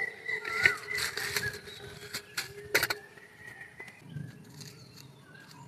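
Steel bowls and a frying pan knocking and clinking as they are set down on the ground, several sharp knocks in the first three seconds, then quieter.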